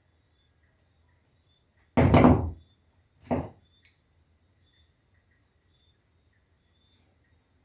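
Two thuds about a second apart, the first louder and longer, then a light click.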